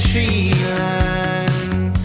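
Background music: a song with a steady bass line, a beat and a melody that may be sung.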